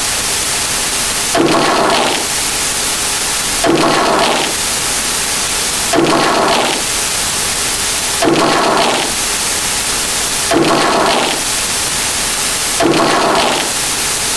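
A repeating sound effect over a steady loud hiss: a short burst, under a second long, comes back evenly about every two and a quarter seconds, six times.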